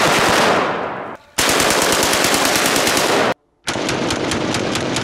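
Full-auto AK-47 firing 7.62×39 rounds in long bursts: one burst trails off about a second in, a second burst runs until a short break about three and a half seconds in, and then a steady string of shots follows at about five a second.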